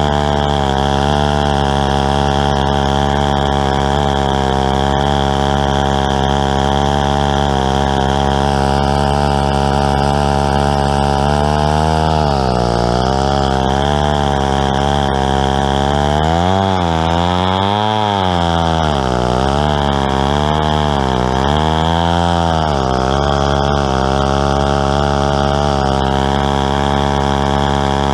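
Untuned Stihl 090 large two-stroke chainsaw running at high revs in a chainsaw mill, ripping lengthwise through a tulip poplar log. Its pitch holds steady at first, then sags under load and picks back up several times in the second half.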